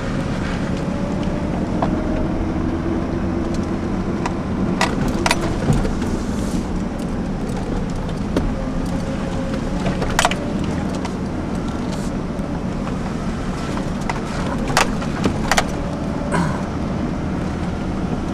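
2002 GMC Sonoma ZR2 pickup's 4.3-litre V6 running steadily as the truck drives a dirt trail, heard from inside the cab. About half a dozen short sharp knocks and rattles come through as it goes over the rough trail.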